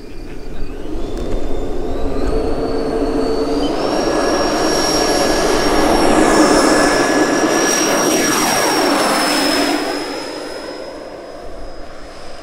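Twin 120 mm Schubeler electric ducted fans of a large RC Airbus A350 model throttling up for takeoff: a whine that rises in steps over the first few seconds, then holds steady and loud with a rush of air as the plane rolls and lifts off. The pitch drops as it passes about eight seconds in, and it fades as it climbs away.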